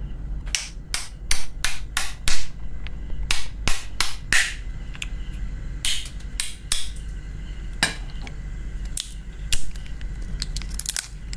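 Hard shell of a whole nutmeg being cracked open by sharp taps from a small hand tool. There is a quick run of knocks at first, then another cluster, then single knocks spaced further apart as the shell breaks away.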